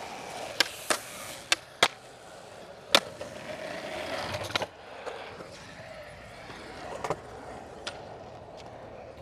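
Skateboard wheels rolling on smooth concrete, broken by a series of sharp clacks of the board's tail and deck hitting the ground, about eight in all, the loudest about three seconds in.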